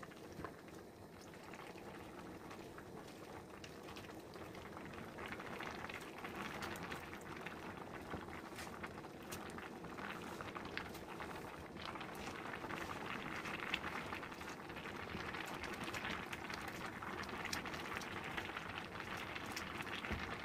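Large aluminium pot of chopped mustard greens and water bubbling at a boil, growing louder over the first several seconds, while a ladle stirs through the greens with a few light clicks.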